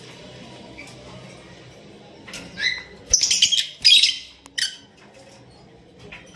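Caged lovebirds calling: a short shrill call about two seconds in, then a loud burst of rapid high-pitched chattering calls lasting about a second and a half, with a light knock at its start.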